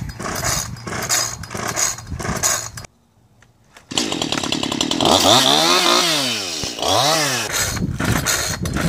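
A Homelite chainsaw's recoil starter yanked again and again without the engine catching, the sign of a saw that will not start. About four seconds in, a Stihl chainsaw runs and revs up and back down twice. Near the end the pull-start yanks on the Homelite come back.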